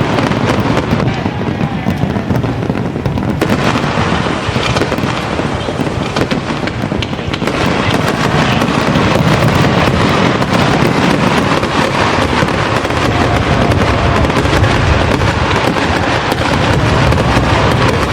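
Fireworks display in full barrage: a continuous, dense stream of bangs and crackling with no pause.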